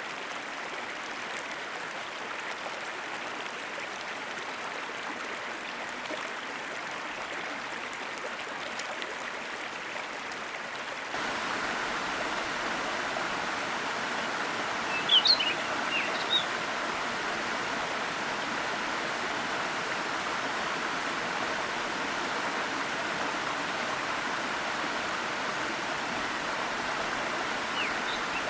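Waterfall cascading through a forest stream, a steady even rush of water that gets louder about a third of the way in. A bird gives a few short high chirps about halfway through and again at the end.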